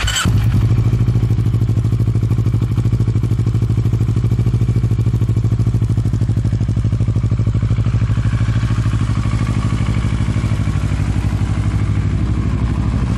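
Kawasaki Versys 650's parallel-twin engine started with a brief crank, catching at once and settling into a steady, evenly pulsing idle.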